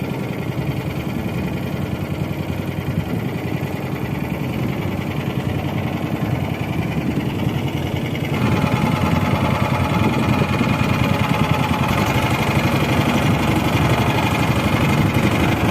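A small fishing boat's engine running steadily with a fast even beat, picking up louder and brighter about eight seconds in as it is throttled up.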